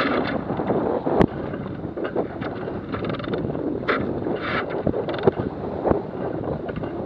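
Strong wind buffeting the microphone on a small sailboat driving through ocean swell in a 20–25 knot wind, with water rushing along the hull. A sharp knock comes about a second in, and a few more knocks come near the end.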